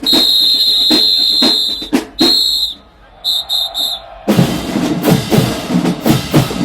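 Marching band drum major's whistle: one long blast of about two seconds, a short blast, then three quick short blasts, over single drum strokes keeping time. About four seconds in, the drumline kicks into a loud, dense marching cadence with bass drums and snares.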